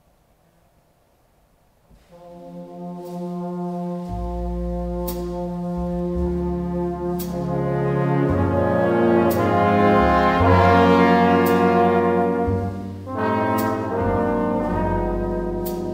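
Jazz big band playing a slow ballad: sustained brass chords over a bass line, with a cymbal stroke about every two seconds. The band comes in about two seconds in and swells to a peak, dipping briefly near the end.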